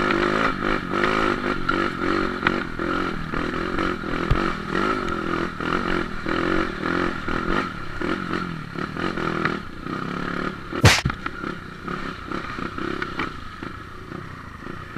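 Dirt bike engine running off-road, its revs rising and falling as the throttle is worked, with some clattering. A sharp knock comes about 11 seconds in, and the engine grows quieter near the end.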